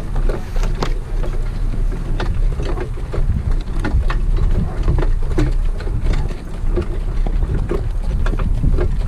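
Heavy wind rumble on the microphone at racing speed, with a run of sharp, irregular knocks: the hoofbeats of a harness racehorse.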